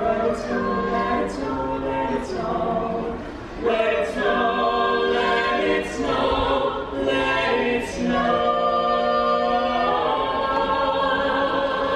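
A small group of carolers singing a carol a cappella in several voice parts, holding sustained chords.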